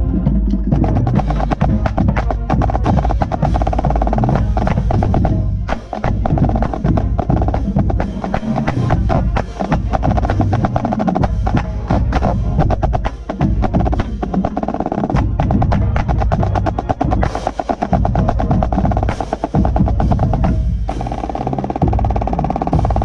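Marching snare drum played close up, with fast runs of strokes and rolls, over a full marching band with bass drums.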